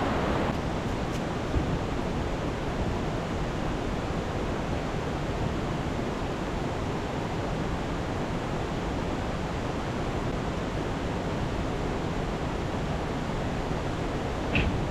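Steady rush of river water, an even noise without breaks.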